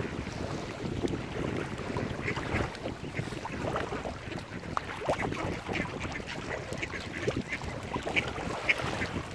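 Wind on the microphone and water moving at the shore, with short waterbird calls scattered throughout.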